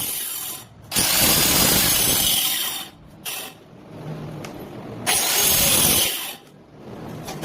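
Power woodworking tool running on wood in bursts of a second or two, with short pauses between them.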